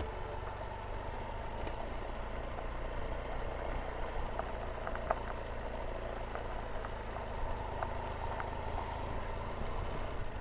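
Motorcycle engine idling steadily, with a few faint ticks over it.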